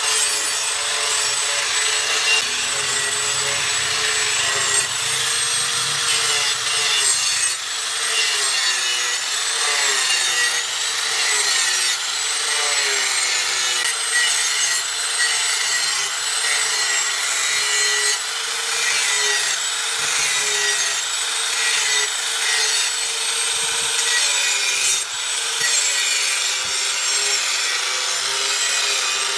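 Handheld angle grinder running continuously, its disc grinding the steel edge bevel of a large knife blade. The motor's whine wavers up and down in pitch as the disc is pressed into and eased off the steel.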